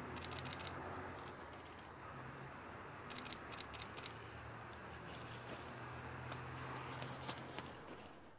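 Camera shutters firing in rapid bursts of several clicks each, a burst every second or two, over a steady low hum and hiss.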